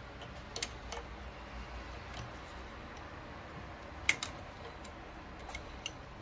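Small metal wrench clicking against a bowden-tube coupler on a 3D printer extruder as the coupler is unscrewed: a few light clicks, the loudest about four seconds in, over a low steady hum.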